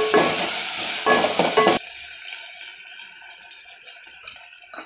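Chopped potato and onion sizzling as they fry in hot oil in an aluminium pot, stirred with a spoon. The sizzle drops abruptly to a much quieter hiss about two seconds in.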